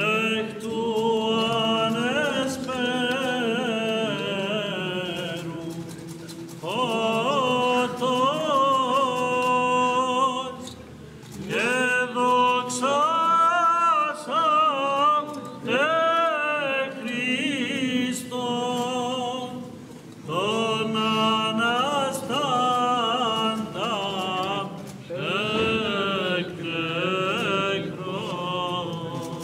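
Byzantine chant sung by male voices of Orthodox monks, long melismatic phrases with short breaths between them, about 6, 11 and 20 seconds in.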